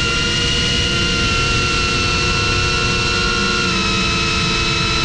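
FPV quadcopter's brushless motors whining at a steady pitch, several tones together, with wind rumbling on the onboard GoPro's microphone.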